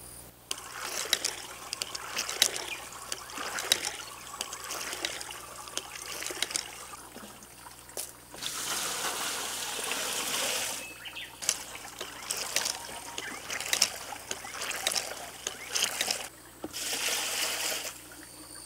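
Water poured from a bucket into a large metal stockpot, splashing and trickling in over several pours with short splashes between them. The longest, steadiest pours come just before halfway and again near the end.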